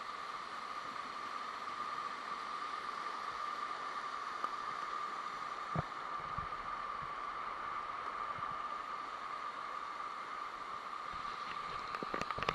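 Steady rush of falling water from a waterfall, with a short knock about halfway through and a few clicks near the end.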